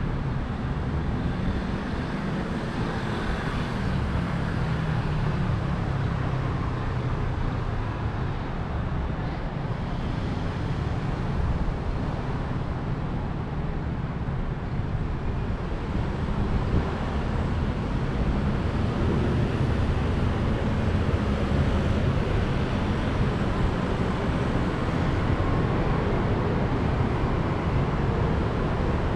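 Steady street traffic noise: a continuous low rumble of vehicles.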